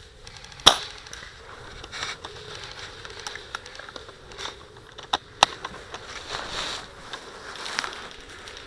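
A cocked airsoft rifle fires one sharp shot less than a second in, followed by a few fainter clicks and snaps.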